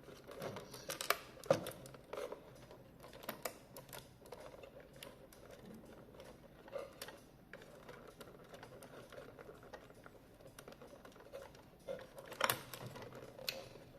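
Irregular light clicks and taps from handling small tools and plastic clock parts while a fastener on a quartz cuckoo clock is being undone, with a few sharper knocks about a second in and near the end.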